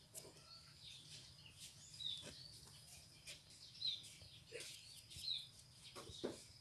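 Faint, short, high bird chirps every second or two, with a few soft ticks between them.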